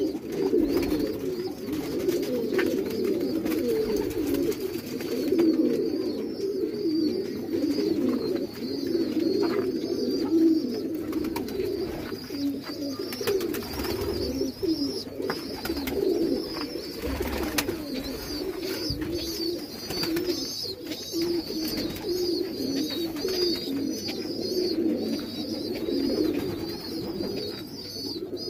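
Many domestic pigeons cooing at once, their overlapping calls forming a continuous low chorus, with a thin high-pitched chirping running above it.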